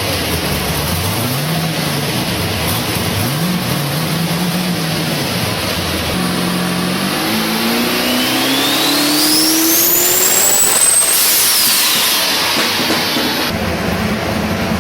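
Car engine revving up and dropping back twice, then pulling up through the revs under load while a forced-induction whine climbs steeply in pitch alongside. At the peak a burst of hiss comes as the throttle closes, and the whine falls away.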